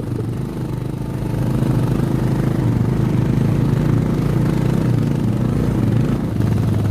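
Single-cylinder motorcycle engine running steadily at low revs on a rough dirt track, getting slightly louder about two seconds in.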